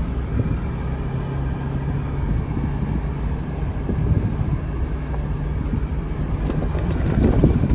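A vehicle driving, heard as a steady low engine drone with road rumble underneath.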